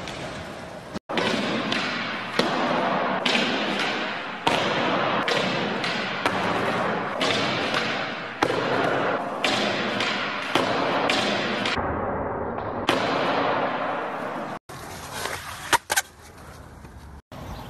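Skateboard riding and tricks: the steady rush of wheels rolling with sharp clacks and thuds of the board every second or so, then quieter board sounds after abrupt cuts.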